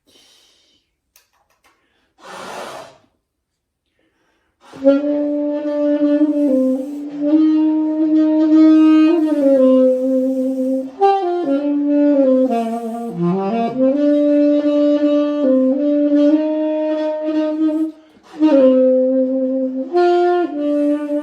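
Solo saxophone playing a slow hymn melody in long held notes, starting about four and a half seconds in after a short hiss, with a brief pause for breath near the end.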